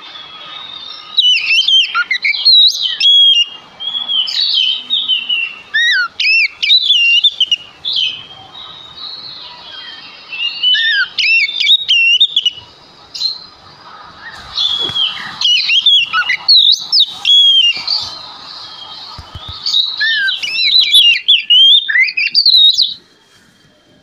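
Oriental magpie-robin in full song (gacor): loud, varied phrases of quick whistles, trills and rising and falling notes. The song comes in several outbursts a few seconds long with short pauses between them, and stops about a second before the end.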